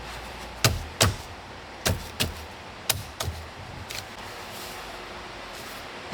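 Tesla Model Y steering wheel being smacked to break it loose from the splined steering column after its retaining nut is off: about seven sharp knocks at uneven intervals over the first four seconds.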